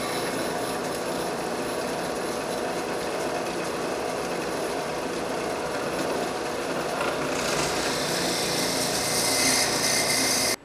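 Drill press running, its bit boring a hole into a small laminated wood block. The cutting noise grows louder and hissier about seven seconds in as the bit bites into the wood.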